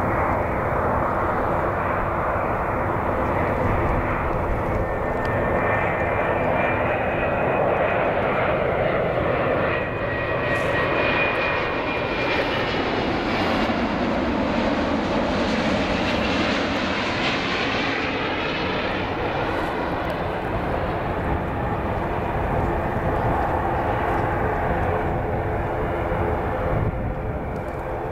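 Airbus A350 airliner's Rolls-Royce Trent XWB turbofans on landing approach: a steady jet rumble with a thin high whine, swelling to its loudest about halfway through as the aircraft passes low and close, with a downward sweep in pitch as it goes by.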